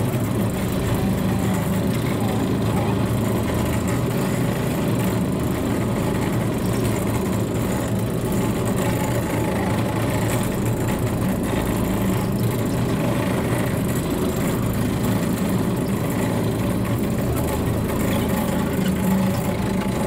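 Steep-slope monorail car's drive unit running with a steady, unchanging drone as the car climbs its single rail.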